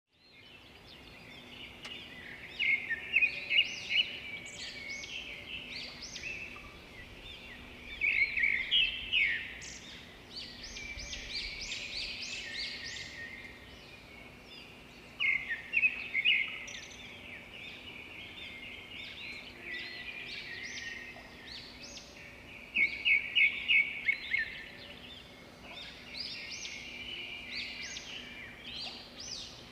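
Songbirds singing and chirping continuously, with louder bursts of rapid repeated notes every several seconds.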